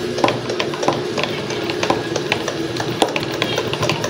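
Hand pump of a plastic pressure sprayer being worked up and down to re-pressurize it after its air has run out, giving quick repeated clicking strokes.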